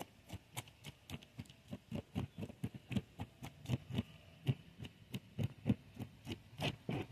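Metal spoon scraping the scales off a sheepshead, quick rasping strokes at about three to four a second.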